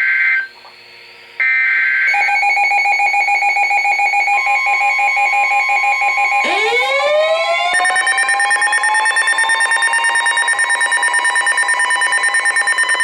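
Emergency Alert System tones: two short bursts of screeching SAME header data, then a steady attention tone. About six and a half seconds in, a siren-like sweep rises in pitch and a fast pulsing alarm tone joins it.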